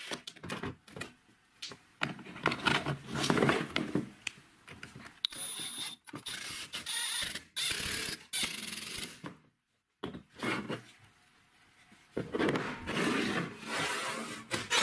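Hand-tool work on a PVC pipe cap: screws driven into the plastic with a hand screwdriver and parts handled, giving irregular clicks, rubbing and scrapes, with a brief silent break about ten seconds in. Near the end a steel sheet scrapes across a wooden bench.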